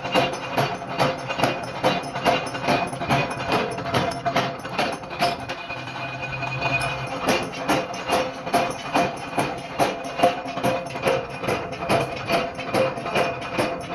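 Background music with a steady percussive beat, about three strokes a second, over held tones.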